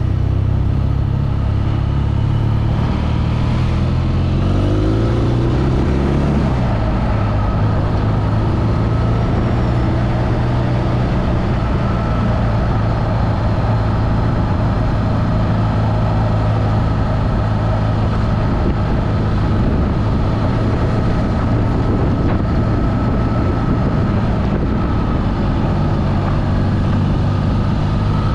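BMW motorcycle engine running while riding through city traffic. It accelerates with a rising pitch about four to six seconds in, then runs steadily under a wash of traffic and road noise.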